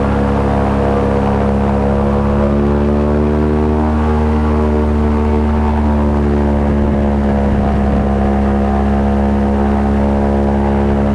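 Airboat's engine and large air propeller running, a loud steady drone whose pitch shifts slightly now and then.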